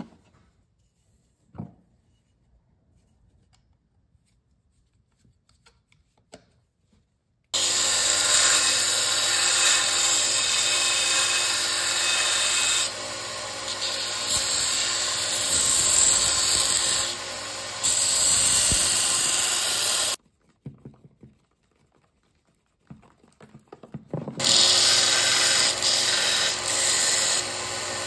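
Bench belt sander running, its abrasive belt grinding the wooden handle scales of a knife. The loud hissing grind starts suddenly after a quiet spell of faint handling clicks, dips in level a couple of times, stops for about four seconds, then starts again near the end.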